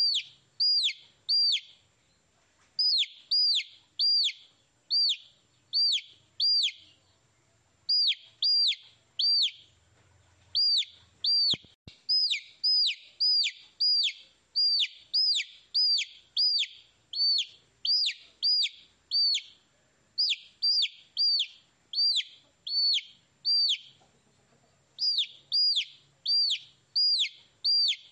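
Baby chick peeping: high, sharply falling peeps, about two a second, in runs of several with short pauses between.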